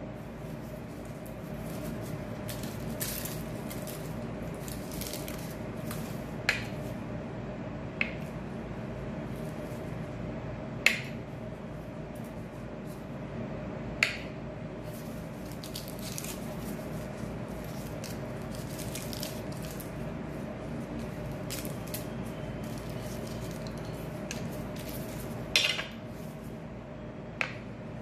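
Knife blade clicking against a ceramic plate while soft processed cheese is cut into cubes: about six sharp clicks spread out, with light scratchy rustling of the foil wrappers in between. A steady hum runs underneath.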